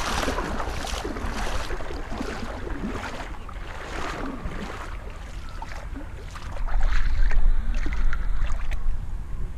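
Legs wading through shallow river water, splashing with each step. About six and a half seconds in a loud low rumble rises for two seconds, the loudest sound here.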